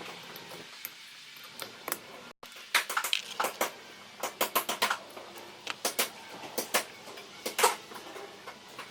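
Metal parts of a car starter motor being handled and fitted together during reassembly: irregular sharp metallic clicks and clinks, coming thick and fast from about three seconds in.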